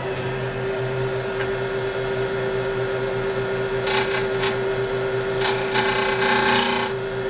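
Wood lathe running with a steady hum while a spalted beech blank spins. About four seconds in, and again for about a second and a half near the end, a bowl gouge cuts across the end of the spinning blank in short passes, squaring the end face.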